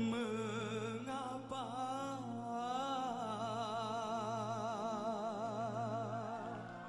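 Male voice singing a wordless, ornamented melismatic line, then holding one long note with wide vibrato from about three seconds in, over steady sustained backing music.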